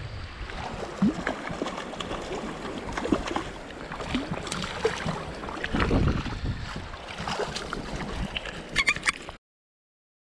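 Choppy sea water lapping and splashing around a wading angler, with wind on the microphone and a few sharp clicks near the end before the sound cuts off abruptly.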